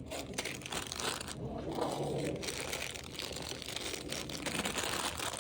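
Rustling and crinkling of handled plastic packaging, with scattered small clicks and knocks.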